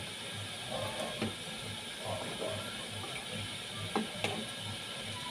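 Spatula stirring squid and string beans in a metal wok: scrapes and a few sharp clinks of the utensil against the pan, over the steady hiss of the food simmering in its sauce. A faint low pulse repeats about three times a second underneath.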